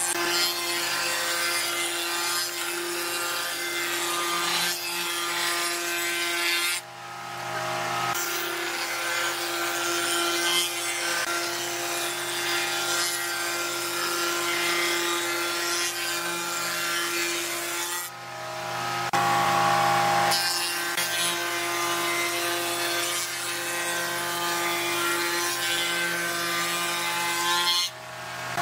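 A spindle moulder cutting a profile along the edge of a hardwood board as a wheeled power feeder pushes it through. The steady cutting noise drops briefly three times, about 7, 18 and 28 seconds in.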